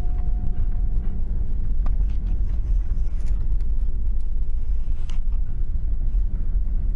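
Steady low rumble of a car running, heard from inside the cabin. A thin high whine stops about a second in, and a couple of faint clicks come through.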